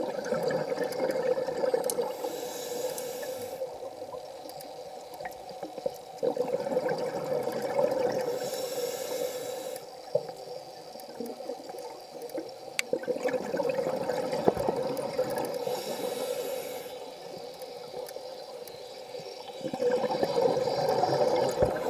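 Scuba diver breathing through a regulator: a rushing burble of exhaled bubbles, then a shorter high hiss of the inhale, repeating about every six to seven seconds.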